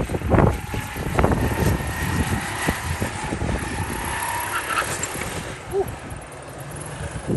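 Go-kart engines droning as karts run past on the track, with wind buffeting the microphone in the first second.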